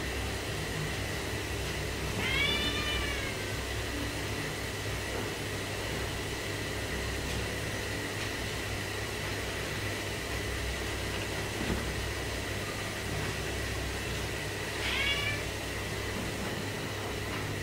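Domestic cat meowing twice: a long meow about two seconds in and a shorter one near the end, over a steady low background hum.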